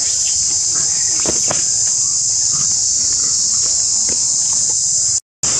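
Steady high-pitched chorus of insects, with scattered faint ticks and rustles beneath it; the sound cuts out for a moment near the end.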